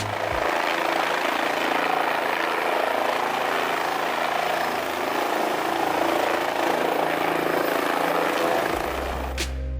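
Aircraft noise: a steady rushing with no clear pitch, starting abruptly and easing off near the end.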